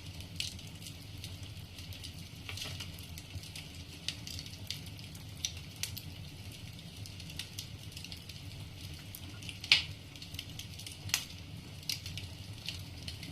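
Wood fire crackling in a fireplace: logs giving irregular pops and snaps over a low steady rumble, with one louder snap about ten seconds in.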